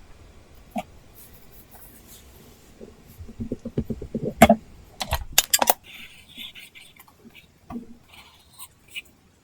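Apple Pencil tip tapping and scratching on an iPad Pro screen covered with a paper-texture film. There are scattered sharp taps, a quick run of small taps about halfway through, then short scratchy pen strokes.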